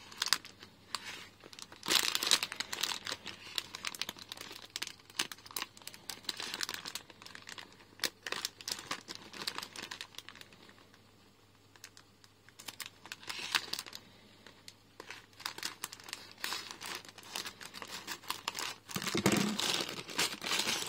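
Thin plastic LEGO polybag crinkling as it is cut open with scissors and then handled, in irregular crackles with a quieter spell around the middle.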